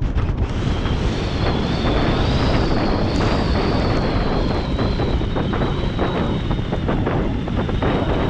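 Airflow buffeting the microphone of a paraglider in flight: a steady rush of wind noise, with a thin high whistle that wavers slightly in pitch.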